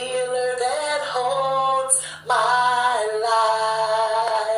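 A woman singing a worship song, holding long drawn-out notes on a vowel with no clear words: two sustained phrases that step in pitch, with a short break about two seconds in.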